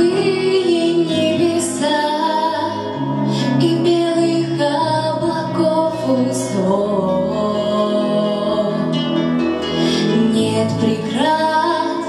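A young woman singing a slow song into a handheld microphone through the hall's sound system, over an instrumental accompaniment. She sings long held notes.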